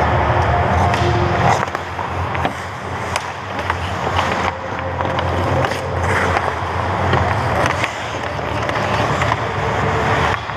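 Ice hockey skate blades scraping and carving on the ice close to the goal, with sharp clacks of sticks and puck scattered throughout, over a steady low rumble.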